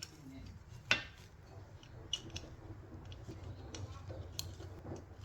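Light metallic clicks and clinks of drum brake parts as a brake shoe hold-down spring is pressed in and locked by hand, with the sharpest click about a second in.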